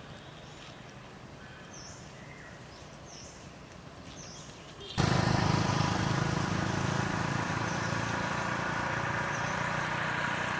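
Faint high chirps over a low hum, then about halfway through a motor engine starts running nearby, abruptly much louder and steady.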